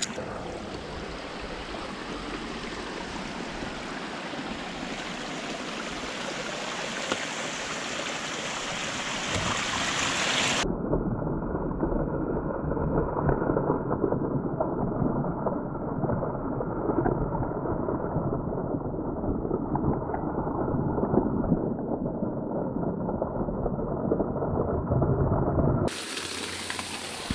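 Rushing water of a forest stream and small waterfall, a steady noise that slowly grows louder. About ten seconds in it turns suddenly muffled and louder, with the high end gone. Shortly before the end it clears again.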